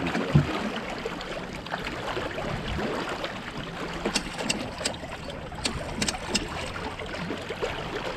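Water rushing and splashing along the hull of a Catalina 22 sailboat under sail, with a thump about half a second in and a handful of sharp clicks around the middle.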